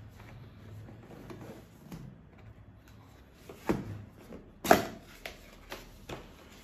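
Cardboard product box being handled and opened: light rubbing and sliding of cardboard, a knock about three and a half seconds in, a louder sharp knock just before five seconds in, then a few light taps.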